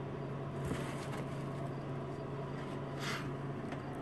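A steady low hum with faint rustling and a few light clicks, and a short burst of hissing noise about three seconds in.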